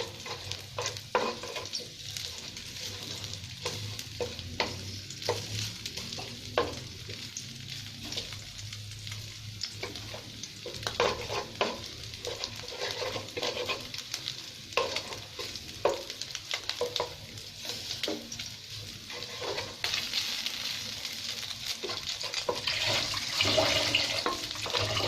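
Chopped garlic sizzling in hot olive oil in a frying pan, at the stage of browning, with scattered clicks and scrapes of a utensil stirring it against the pan. The sizzle grows louder over the last few seconds.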